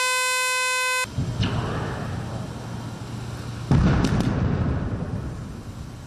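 A demolition warning horn holds one loud steady note and cuts off about a second in. A few seconds later comes a sudden, heavy, low rumble as a steelworks chimney stack is felled, dying away toward the end.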